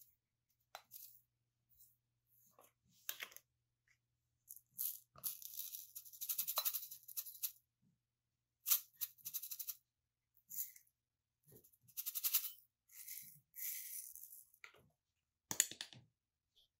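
Dried thyme and rosemary leaves being spooned and tipped from clear spice jars into a glass bowl: a string of short, dry rustling pours, with a few light clicks of spoon and jar.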